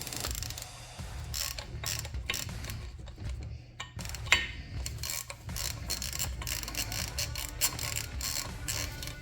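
Hand ratchet wrench clicking in repeated strokes while tightening the bolts that hold the brake rotor to the front hub, with a sharper click or knock about four seconds in.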